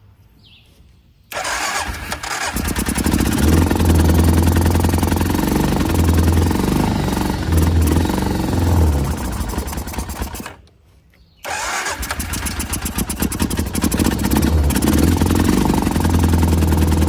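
ATV engine starting and running at fast idle, stalling out after about nine seconds and starting again a second later; its fuel shutoff is still turned off.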